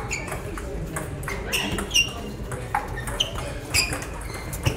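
Table tennis ball in a rally, striking bats and table with a sharp ping about every half second from about one and a half seconds in, over a low hall rumble.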